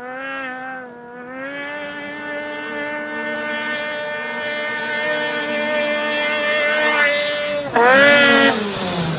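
Snowmobile engine running at high revs with a steady pitch, slowly growing louder as the sled approaches. Near the end it turns much louder, its pitch dipping and then climbing sharply as the sled leaves the snow and goes airborne.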